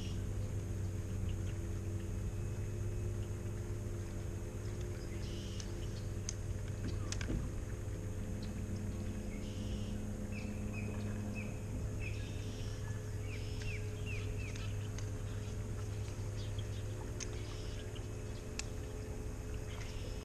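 Steady low hum of a bass boat's bow-mounted electric trolling motor as the boat creeps along. A bird calls in a quick series of short chirps about halfway through, with a few faint clicks.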